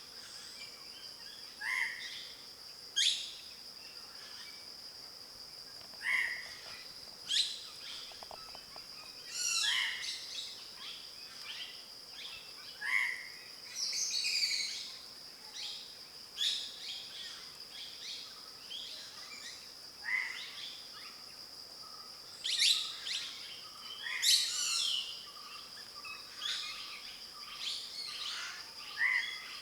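Wild birds calling again and again, short notes and sharper sweeping chirps every second or two, over a steady high-pitched insect drone.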